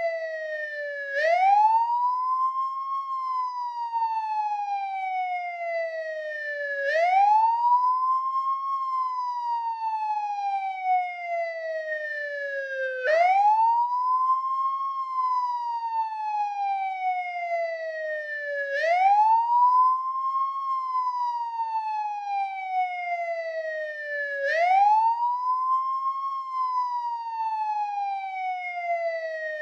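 American police siren on the wail setting: one tone that sweeps up quickly, then falls slowly back down, repeating about every six seconds.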